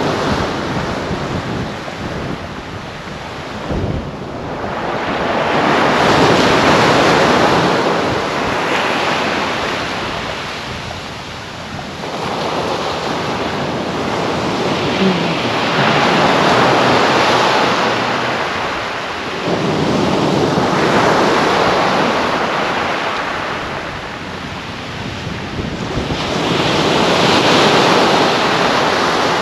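Surf breaking and washing up a sand-and-shingle beach: a rushing wash that swells and fades with each wave every few seconds.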